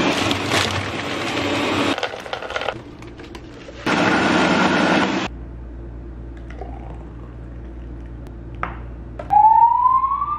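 Ninja countertop blender running on a spinach smoothie: it stops about two seconds in, then runs again in a shorter burst around the four-second mark. Near the end a siren starts up, rising in pitch.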